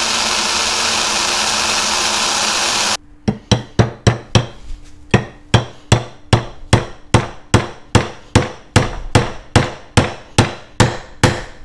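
A cordless drill runs steadily for about three seconds, drilling through the mounting bushing of a Brembo four-piston brake caliper, then stops abruptly. A ball-peen hammer follows with about twenty sharp, evenly spaced blows, roughly two and a half a second, tapping the insert into the caliper.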